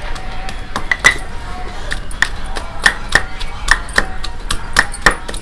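Wooden papad rolling stick pounding coriander seeds, cumin, ginger and garlic, as a makeshift pestle in place of a broken grinding stone. Steady knocks about three a second, each with a short ring.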